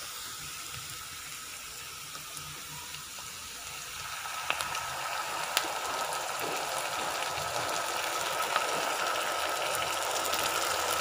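Sliced onions and garlic sizzling in hot coconut oil in a non-stick frying pan, the sizzle growing louder about four seconds in, with a couple of sharp clicks.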